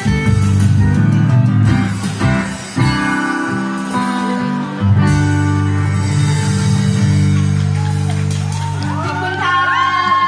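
Live band music led by acoustic guitar playing held chords over low bass notes, with a woman's singing voice coming in near the end.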